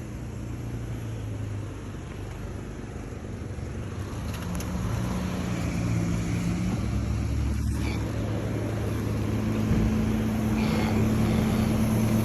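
Motor vehicle engine running with a steady low hum that slowly grows louder, a second low tone joining partway through.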